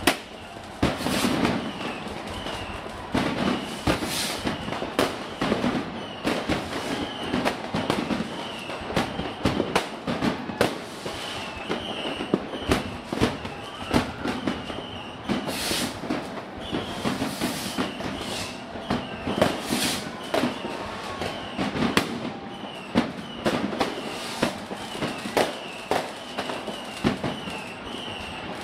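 Fireworks: many aerial shells and firecrackers going off at once, irregular sharp bangs over a continuous crackle.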